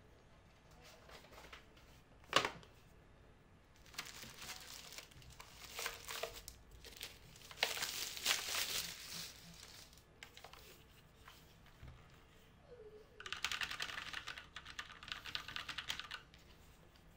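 A single sharp knock, then a thin plastic bag crinkling and rustling in bursts as a Lofree Retro DOT mechanical keyboard is slid out of it. About thirteen seconds in, a fast run of typing clicks on the keyboard's round keycaps lasts about three seconds.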